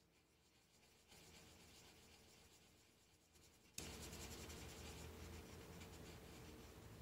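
Red colored pencil scratching on paper, shading in a small circle with faint, continuous strokes. The scratching starts about a second in and grows louder just before the four-second mark.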